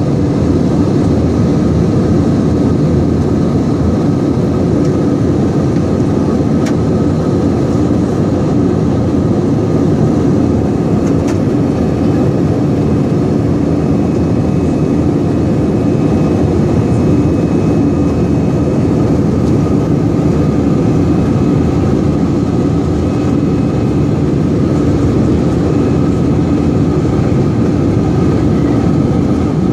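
Steady cabin noise inside an Airbus A321-200 airliner in the climb: the jet engines' drone and the rush of air, heard from a window seat, with a faint steady whine running through it.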